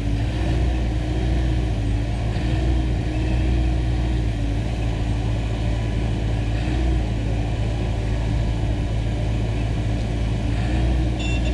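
Hyundai excavator's diesel engine running steadily under working load, with a hum that dips and rises slightly in pitch as the hydraulics move the arm.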